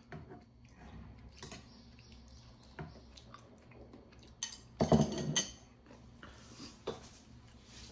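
Metal fork and utensils clinking against a ceramic plate and steel pot, with one louder clatter about five seconds in as the plate is set down on the wooden table.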